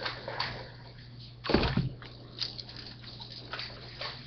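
Rustling and knocking of tactical vest and gear being handled and fitted, with one heavy thump about a second and a half in and a few lighter knocks after it.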